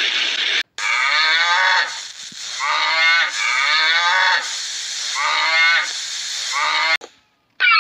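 Cattle mooing: a run of long, drawn-out moos, each bending down in pitch as it ends. It is preceded by a short even hiss in the first moment.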